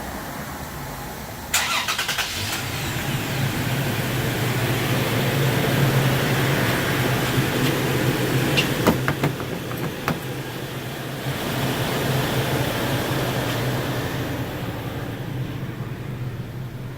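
Truck engine cranking and catching about a second and a half in, then idling steadily. This is typical of a remote start demonstration on a 2017 Toyota Tacoma.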